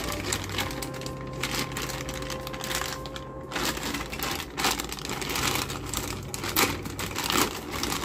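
A clear plastic bag crinkling as it is handled and squeezed, with the small hard pieces inside clicking against each other in irregular bursts.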